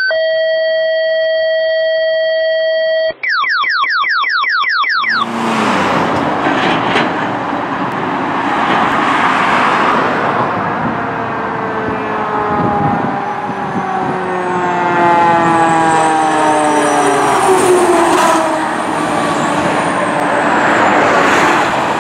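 A steady electronic tone held for about three seconds, then a quick run of rising chirps. From about five seconds in, a fire engine on an emergency response goes by with its siren wailing up and down over its engine and road noise.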